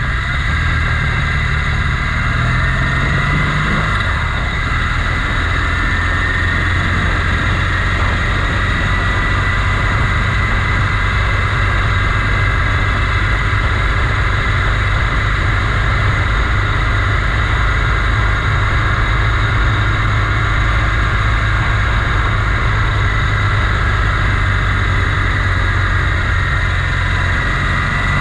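Motorcycle engine running steadily, with a brief rise and fall in pitch a few seconds in.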